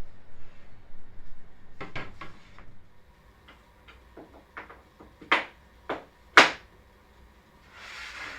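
A series of sharp knocks and clacks, about eight in all and unevenly spaced, like wooden parts being handled and set down; the loudest comes about six and a half seconds in. A short soft hiss follows near the end.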